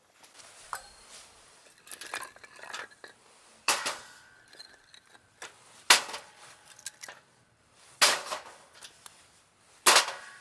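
Metal cookware and utensils clinking and knocking: a series of sharp strikes, the four loudest roughly two seconds apart, some with a short metallic ring.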